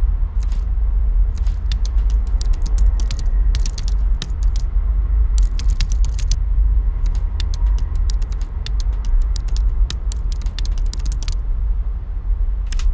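Computer keyboard keys clicking in irregular bursts of typing, over a steady deep drone.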